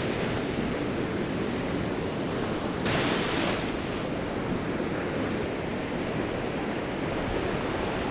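Ocean surf washing on the shore, with wind on the microphone; the noise swells briefly louder about three seconds in.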